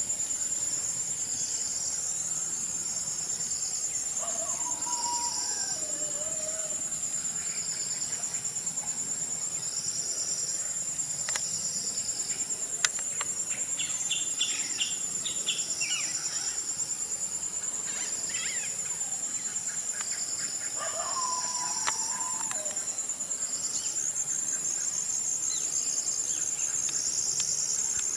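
Steady, high-pitched chorus of insects shrilling without a break, with a second pulsing insect trill coming and going beneath it. Twice a bird calls with a note that falls in pitch, about four seconds in and again past twenty seconds.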